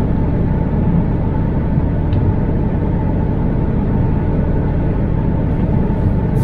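MAN TGX truck's diesel engine running steadily while driving, with a low road rumble.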